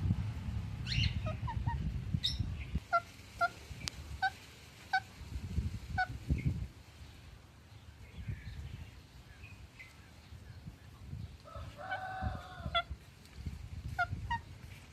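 Ringneck parrot calling in a string of short, sharp chirps, with a longer, harsher call about twelve seconds in.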